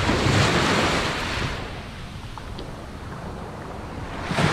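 Small surf waves washing up the beach. One comes in at the start and fades over about a second and a half, and another surges in near the end.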